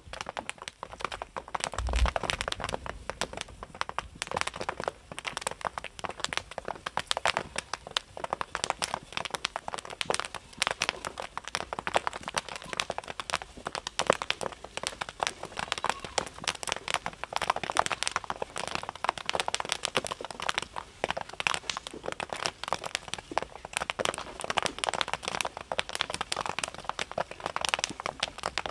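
A large batch of popcorn kernels popping in hot oil: a dense, continuous rattle of many pops a second, with a brief low thump about two seconds in.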